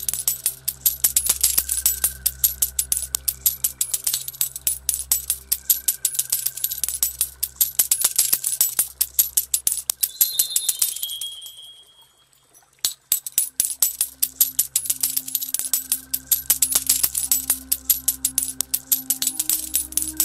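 Ambient music with a steady low drone under a continuous shower of clinking, jingling coins. About eleven seconds in it fades almost to silence, then starts again with a sharp click a second or so later, as a loop restarting.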